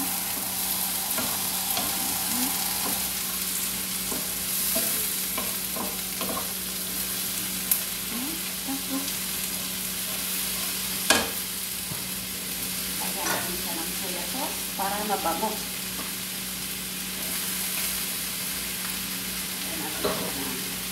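Shrimp and sliced vegetables sizzling as they stir-fry in a wide pan, stirred and turned with a wooden spatula. A couple of sharp knocks stand out, the loudest about eleven seconds in.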